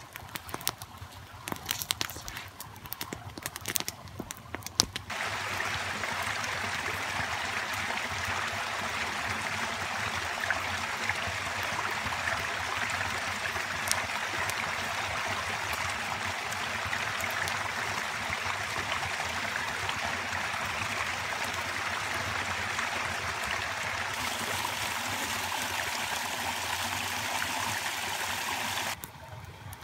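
Steady rush of flowing stream water, coming in suddenly about five seconds in and cutting off just before the end, with a few faint knocks over it. The first seconds hold only scattered rustles and knocks.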